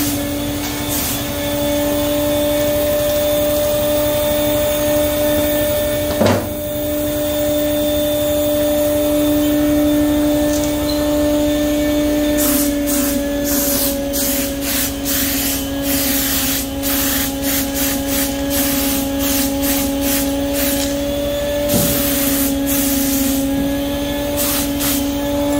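Spray gun spraying metal flake paint in short hissing bursts of air, coming thick and fast from about halfway, over a steady machine hum.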